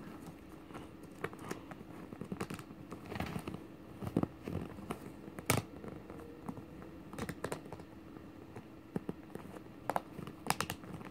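Small plastic clicks, taps and light rustling from hands fitting a toy wrestling belt around a plastic action figure, in irregular bursts.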